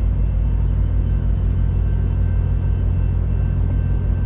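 Passenger train passing close by: a loud, steady low rumble with a few faint steady high tones above it.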